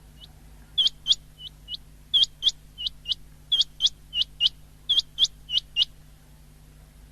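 Common quail calling: four quick phrases of short, sharp, high notes, about four notes each, stopping near the end. A faint steady hum runs underneath.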